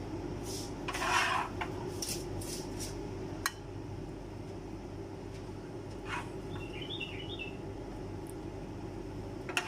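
Dishes and utensils clinking and knocking a few times in the first few seconds, over a steady low hum. A brief cluster of high chirps comes about seven seconds in.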